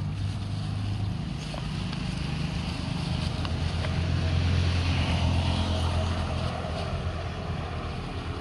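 Steady low engine drone that swells for a couple of seconds in the middle, with faint crinkling of a plastic bag being handled.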